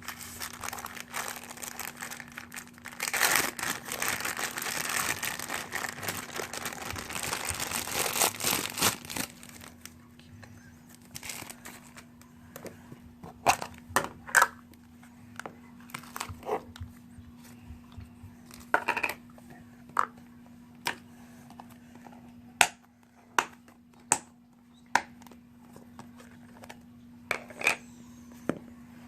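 Homemade slime being squeezed and worked to make fart sounds. For several seconds near the start it gives a dense wet crackling and squelching, then a long run of separate short, sharp pops and squishes.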